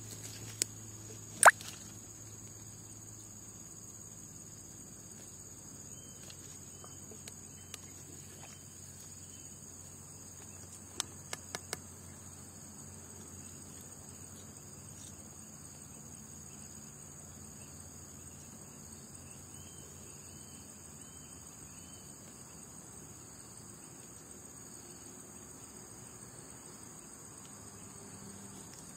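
Steady, high-pitched drone of insects such as crickets or cicadas. It is broken by a few sharp clicks: a loud one about a second and a half in and a quick run of four around eleven to twelve seconds.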